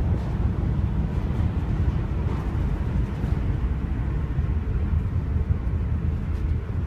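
Steady low rumble of a boat running under engine power, with no change in pace.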